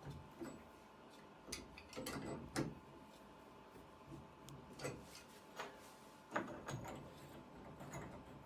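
Faint, scattered clicks and light knocks of metal bathtub faucet trim parts being handled and screwed onto the valve stems, the sharpest about two and a half seconds in and again past six seconds.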